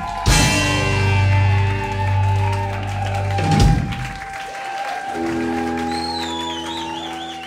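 A live reggae band holding out the end of a song: a sustained chord under a long high held note, a drum strike just after the start and another about three and a half seconds in, then a fresh held chord.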